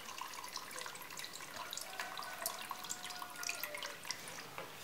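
Diesel fuel trickling and dripping faintly from a used fuel filter into a plastic bucket of fuel.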